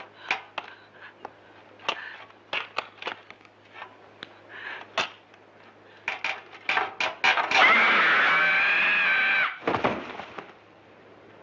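A run of short sharp knocks and scuffs, then a woman's long scream of about two seconds as she falls from a roof, cut off by a heavy thud of her body landing.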